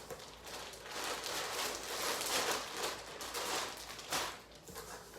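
Plastic packaging rustling and crinkling as items are unwrapped by hand, with a dense stretch of crinkling in the middle.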